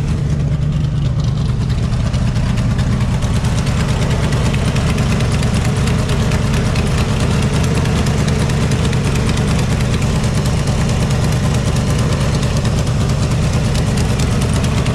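A Shelby Cobra replica's 350 V8, rated at 420 horsepower, idling steadily.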